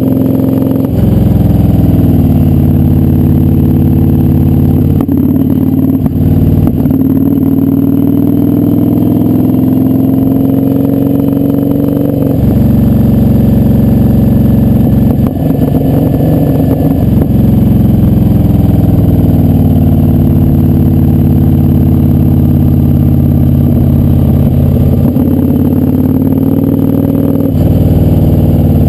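Kawasaki Vulcan 900 V-twin engine running under way, its note rising and falling repeatedly as the throttle opens and closes, with a few sudden drops in pitch.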